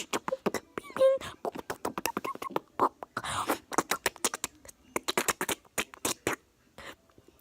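A person making weird noises with the mouth: a fast, irregular string of clicks and pops, with a few short squeaky tones.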